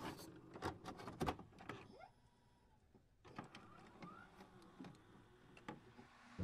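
Faint scattered clicks and knocks, several in quick succession at first, then a second or so of near silence, then a few more.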